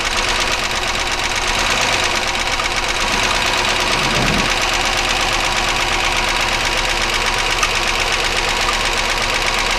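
1999 Chevy Malibu's 3100 V6 idling with a rapid, steady ticking internal engine noise. Pulling the spark plug wires one at a time doesn't change the noise, which the owner takes as pointing to the top end rather than rod knock.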